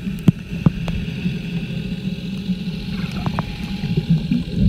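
Lazy-river water sloshing and gurgling, heard muffled: a steady low rumble with scattered sharp clicks.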